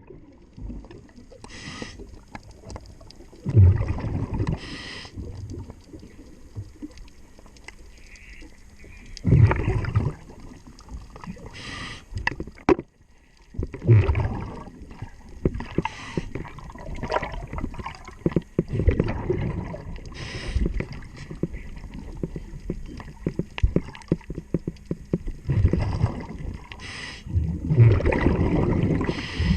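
Underwater: a diver breathing through a regulator, with loud bursts of exhaled bubbles about every five seconds and short hisses between them, over scattered clicks and knocks.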